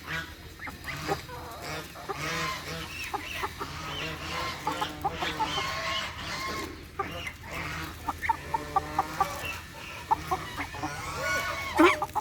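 Barnyard fowl calling: many short, overlapping calls, with a run of quick, evenly spaced short notes about eight seconds in.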